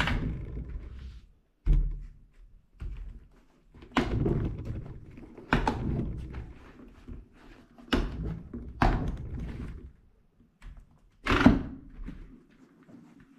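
A full-face motorcycle helmet, an MT Jarama, being handled and turned on a table: a series of dull thunks and knocks, about seven, with light rustling of hands on the shell in between.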